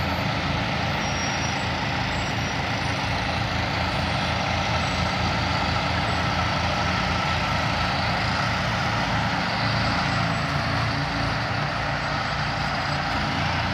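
Diesel engines of several heavy-haul semi tractors running steadily under load as they pull a massive multi-axle rig slowly around a corner.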